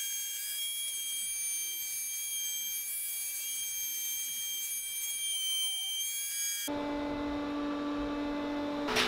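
Router mounted in a Triton router table running with a steady high-pitched whine while a walnut board is fed along the fence. About two-thirds through, the sound changes to a lower motor hum, and near the end the bit cuts into the wood with a rushing noise.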